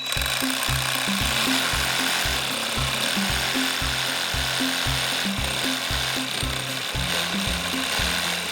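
Stanley 18-volt lithium battery reciprocating saw cutting wood: a steady, loud rasping buzz that starts abruptly. Upbeat background music plays under it.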